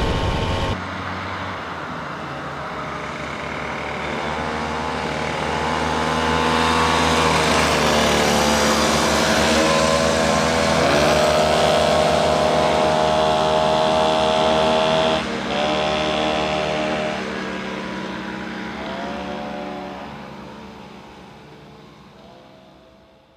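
A motor vehicle engine running, its pitch rising and shifting several times as it pulls, then fading away near the end.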